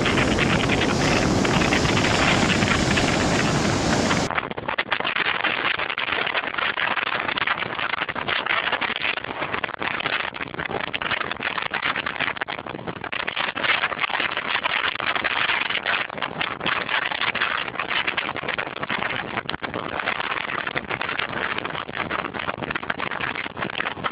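Storm wind blasting the microphone over heavy surf breaking against a ship's hull and rocks, a loud rough rush that rises and falls with the gusts. About four seconds in it turns thinner and duller.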